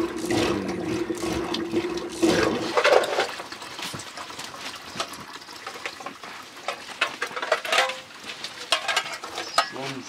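Liquid sloshing and splashing in a clay pot as milk is churned for butter with a rope-spun wooden churning stick, then milky liquid is poured into the churn, with scattered knocks and clicks.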